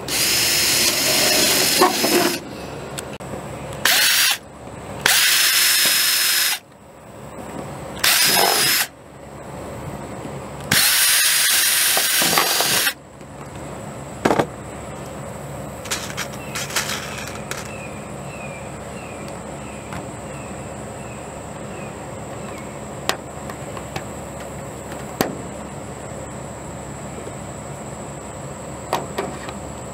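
Milwaukee cordless drill running in five short bursts, each about half a second to two seconds long, as it drives screws through a sheet-metal gutter end cap. The bursts fall in the first half; after that only a few faint clicks are heard.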